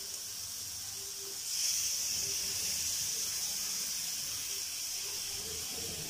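Egg and carrot stir-fry sizzling in a hot wok on high flame. About a second and a half in, the hiss jumps suddenly louder as soy sauce hits the hot pan, then slowly eases off.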